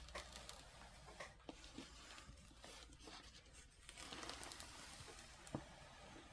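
Near silence with faint rustling and a few light taps as a diamond painting canvas is handled and rolled up.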